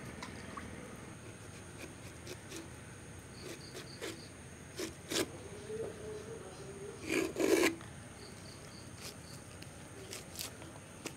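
Ripe jackfruit being pulled apart by hand, with short ripping and rustling sounds as pods and fibrous strands tear from the sticky rind; the loudest tears come about seven seconds in. Faint steady insect trilling runs underneath.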